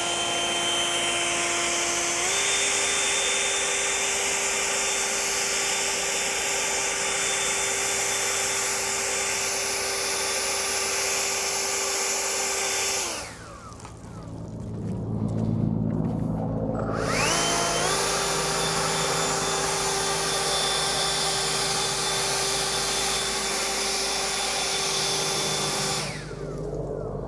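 Greenworks 80V cordless jet leaf blower running flat out: a steady high whine from its fan over the rush of air. Its pitch steps up about two seconds in. About halfway through it shuts off, then after a few seconds spins back up to the same pitch and runs until it shuts off again near the end.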